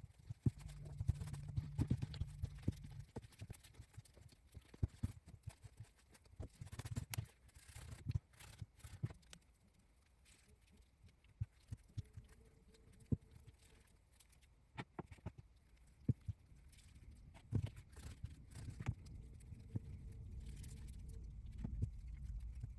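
Hands tearing off and rounding pieces of bread dough on a silicone pastry mat: irregular soft thuds and sharp little taps and clicks.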